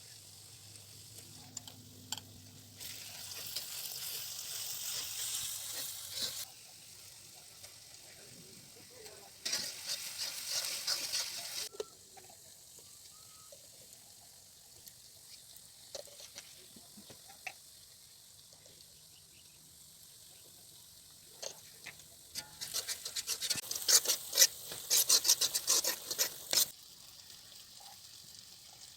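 Chicken frying in a pan, sizzling in three spells of a few seconds each as it is stirred, with quick scraping clicks; the last spell, near the end, is the loudest. Faint clicks in between.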